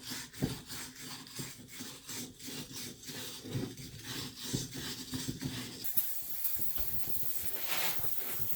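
Rhythmic rubbing strokes, about two a second, then a steady hiss of penetrating oil sprayed from an aerosol can that starts about six seconds in, flushing rust off a cleaned excavator hydraulic part.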